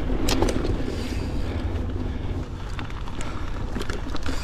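Wind buffeting a GoPro's microphone during a mountain bike ride, over the steady rumble of the tyres rolling on a dirt trail. A few sharp clicks and rattles from the bike come through.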